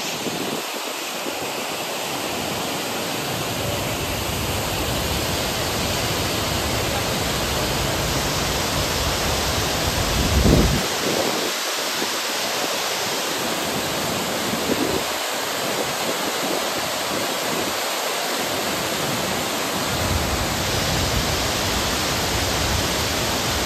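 Steady rushing of fast-flowing stream water at a water crossing on a mountain track, with a brief low surge about ten seconds in.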